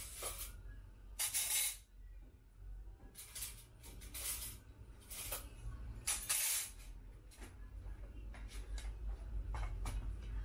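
Short bursts of hissing noise, several in a row, over a steady low hum, giving way to scattered light clicks; near the end, plates and forks are set down on a table.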